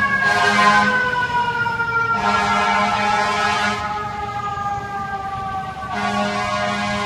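Fire engine siren wailing. Its pitch slides slowly down for several seconds and jumps back up near the end.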